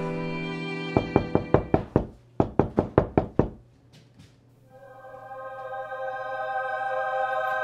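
Rapid knocking on a front door: two quick runs of knocks, about six and then about eight, a couple of seconds in. Background film music fades away before the knocks and returns as a held chord after them.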